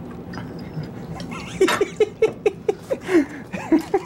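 Whiskey glugging out of a bottle as it is poured into a cup: a quick run of about ten gurgling pulses, roughly four a second, starting about one and a half seconds in.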